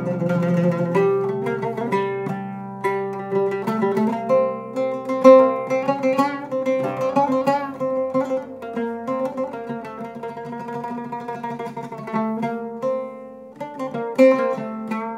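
Solo oud played live: a melody of plucked notes, some left to ring.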